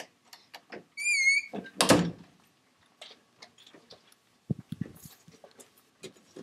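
A door hinge gives a short, wavering squeak about a second in, followed by a loud thump. A run of light, irregular taps and knocks follows.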